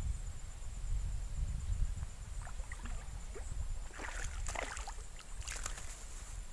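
Low rumble of wind on the microphone, then, about four seconds in, a small snakehead (haruan) splashing at the water's surface as it strikes the lure and is hooked, with a short run of sharp splashes near the end.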